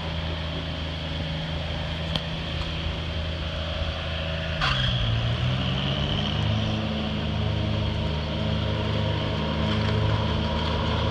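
Minivan engine running while towing a boat trailer in reverse: a steady engine hum whose pitch dips and then climbs about halfway through, running a little louder afterward as it is given more gas.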